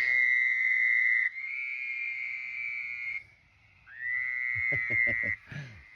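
Toads trilling: a run of high, steady trills, each lasting about one and a half to two seconds, with overlapping callers at slightly different pitches and a short pause about halfway through. A few short, low croaks sound underneath near the end.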